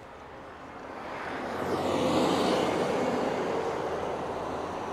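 A road vehicle passing close by on the highway: tyre and engine noise swells to a peak about two seconds in, dropping in pitch as it goes past, then slowly fades.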